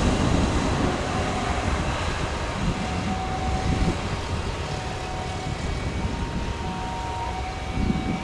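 Jet engines of a Boeing 737 airliner running at low taxi thrust as it turns onto the runway and lines up: a steady rumble with a thin, steady whine over it.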